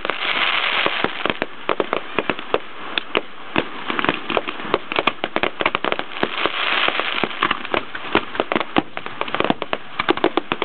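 Fireworks display: aerial bursts giving off dense, rapid popping and crackling, many sharp pops a second with no let-up.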